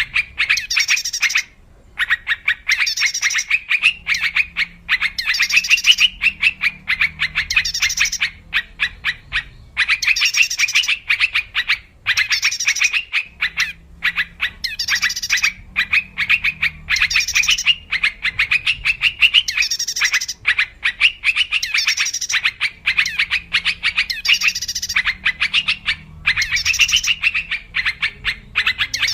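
Yellow-vented bulbul calling: bubbly, rapid chattering phrases repeated over and over with short breaks between them, as in a looped lure-call recording.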